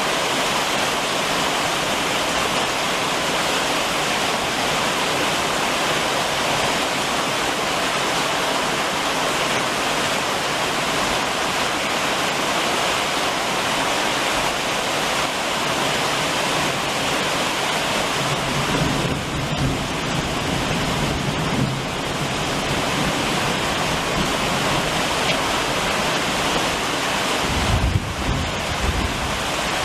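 Steady rain drumming on a roof, an even, dense hiss. Low rumbles come in about two-thirds of the way through, with a stronger low thump near the end.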